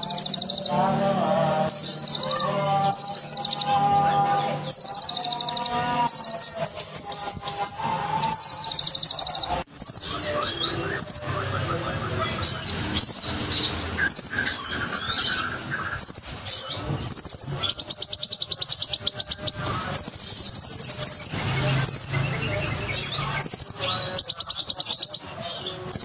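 Copper-throated sunbird (kolibri ninja) singing: short, very rapid high trills repeated again and again, mixed with quick varied twittering phrases. A longer trill comes a little after halfway.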